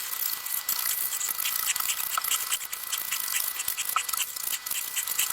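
Scraping the green skin off a fresh, still-tender bottle gourd by hand: quick, repeated short scratching strokes of a tool over the rind.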